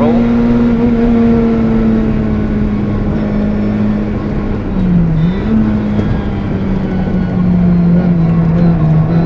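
VW Polo 1.4 rally car's engine, heard from inside the cabin, running at steady revs. Its pitch sags slowly, with a brief dip and recovery about five seconds in.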